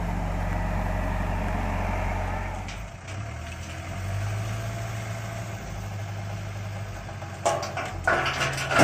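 Diesel engine of a Case 752 road roller running steadily; about three seconds in its note drops and changes. Near the end a louder rushing, hissing noise starts.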